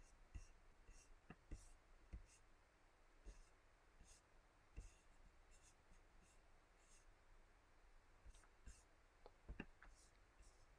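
Near silence: room tone with faint, irregular small clicks and ticks scattered through it.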